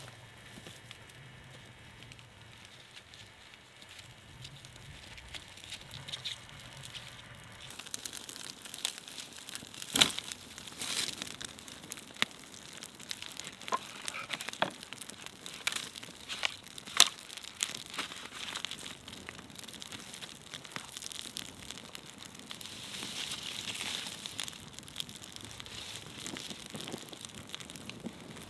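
A small campfire of dry twigs catching and crackling, with sharp pops and snaps. It is quiet at first; the crackling starts several seconds in, with two loud pops, and grows denser near the end as the flames take hold.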